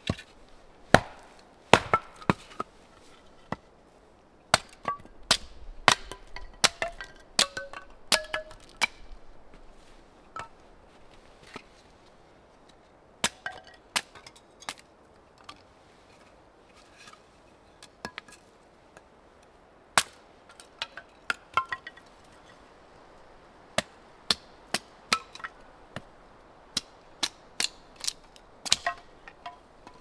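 Axe chopping and splitting firewood on a wooden chopping block: a long series of sharp chops and knocks, some with a short ringing tone. The strikes come thick at first, thin out to a lull in the middle, then pick up again near the end.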